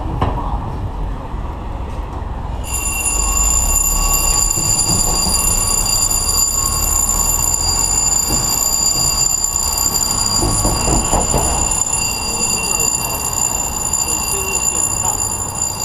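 Firehouse apparatus-bay warning alarm: a steady high electronic tone that starts about three seconds in and holds without a break. Underneath is a low rumble of street traffic that drops away about twelve seconds in.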